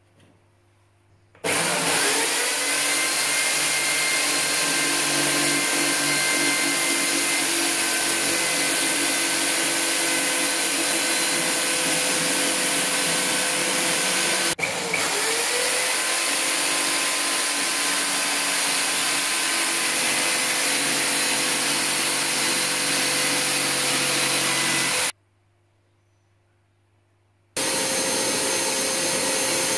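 Corded jigsaw running steadily as it cuts the edge of an opening in a board bench top, with a momentary break about halfway. Near the end, after a short pause, a shop vacuum starts running.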